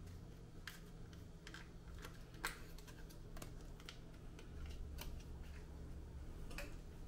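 About ten light, irregular clicks and taps of hands handling a desktop CPU and its small parts, the sharpest about two and a half seconds in, over a low steady hum.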